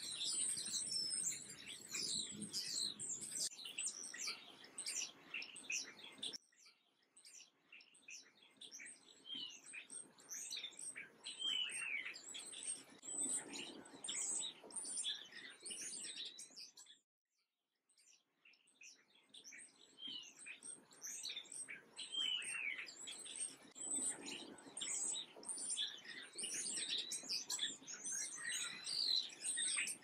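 Flock of house sparrows chirping, many short overlapping chirps in a continuous chatter. The sound cuts out completely for about a second a little past the middle.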